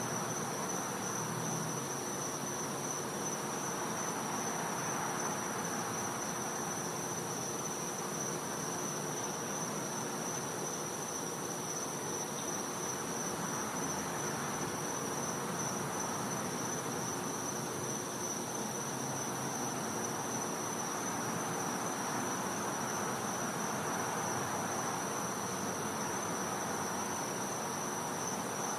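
Night insect chorus: one steady, unbroken high-pitched trill over a soft, even background hiss.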